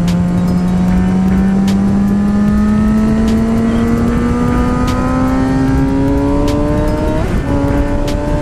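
Suzuki GSX-R sport bike's inline-four engine pulling in gear while riding, its note rising slowly as the bike gains speed, with a brief break in the note about seven seconds in. Wind noise runs underneath.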